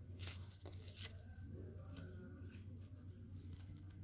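Faint room noise: a steady low hum with a few soft, scattered clicks and rustles.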